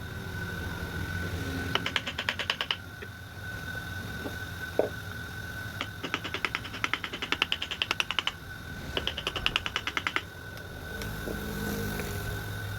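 Hand wood-carving tool tapped in quick runs of light, sharp taps, about nine a second, each run lasting one to two seconds, over a steady low hum.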